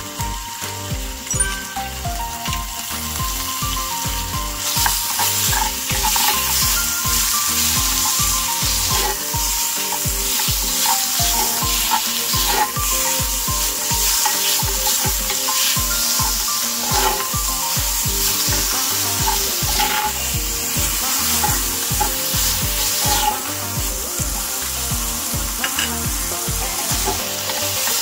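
Chicken tenderloin strips and garlic sizzling in a hot stainless steel frying pan, stirred with a wooden spatula that scrapes against the pan.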